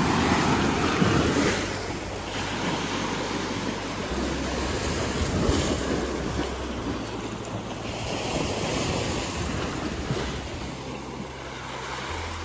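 Small lake waves breaking and washing onto a gravel beach among driftwood, with wind buffeting the microphone. Loudest in the first couple of seconds.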